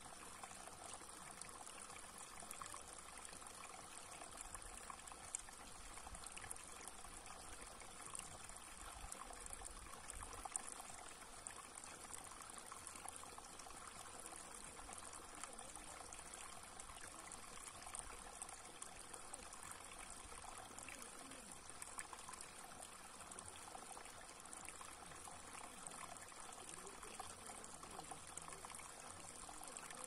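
Shallow stream of water trickling over a flat rock slab and spilling into a still pool: a faint, steady burble.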